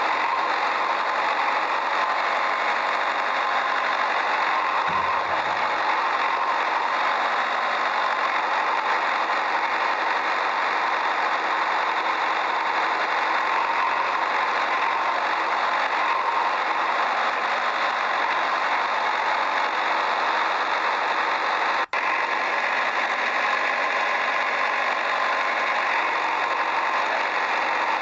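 A small motor running steadily with an even buzzing hum, cutting out for an instant about 22 seconds in.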